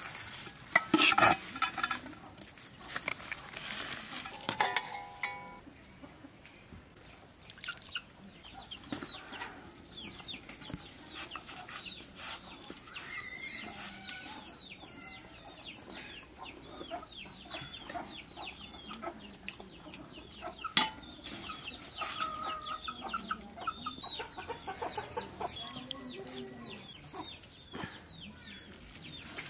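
Domestic chickens clucking amid a long run of short, high chirps. A steel ladle clatters against a metal serving pot about a second in.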